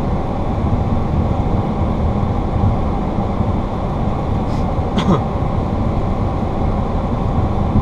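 Steady rumbling flight-deck noise of a Boeing 737-800 taxiing after landing, with a short click about five seconds in.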